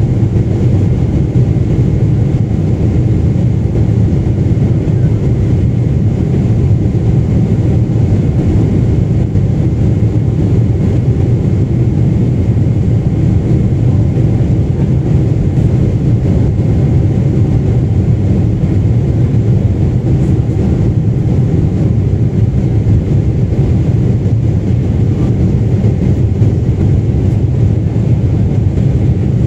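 Steady cabin noise inside a Boeing 747-8 airliner in flight: a loud, even low rush of airflow and engine noise with a faint steady high tone.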